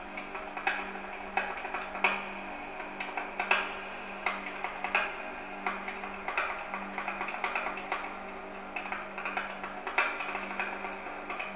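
Percussive music: clicking, knocking strokes like wood blocks over a steady low drone, with a stronger stroke about every second and a half.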